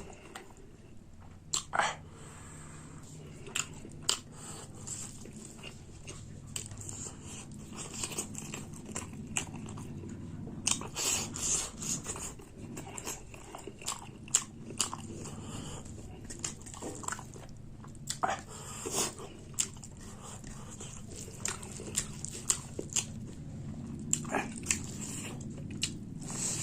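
A person eating close to the microphone: chewing food, with many short, irregular clicks and mouth noises.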